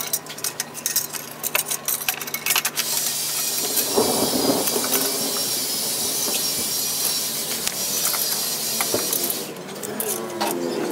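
Metal clinks and taps as a chrome exhaust pipe is handled and lined up on a motorcycle, followed by a steady hiss lasting several seconds.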